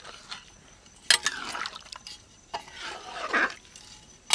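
Flat spatula stirring thin curry in a black iron kadai, with sharp knocks of the spatula against the pan about a second in, again halfway through, and at the end, the first knock the loudest.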